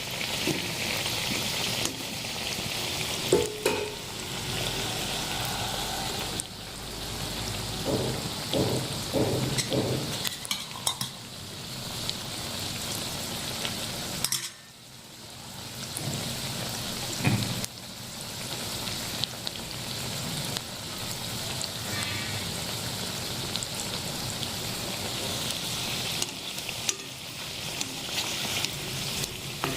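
Potato kachoris deep-frying in hot oil: a steady sizzle with a few light knocks. The sizzle dips sharply for a moment about halfway through, then comes back.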